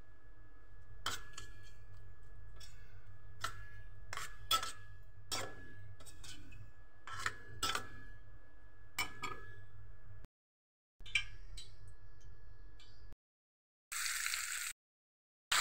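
Metal spoon stirring a thick spice paste in a stainless steel bowl, clinking and scraping against the side about once a second. Near the end, a brief burst of sizzling from chicken frying in oil.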